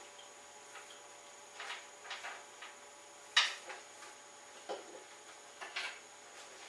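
About ten light clinks and knocks of glassware and small objects being handled on a lab bench, scattered and irregular, the loudest a sharp clack a little past halfway. A low steady electrical hum runs beneath.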